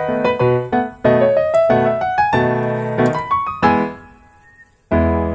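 Background piano music: a quick run of notes that falls quiet for a moment about four seconds in, then a deep held chord near the end.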